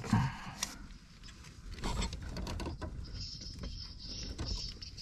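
Light clicks, knocks and rubbing of a gloved hand working a fuel-tank hose connection under a C6 Corvette Z06, with sharper clicks about half a second and two seconds in.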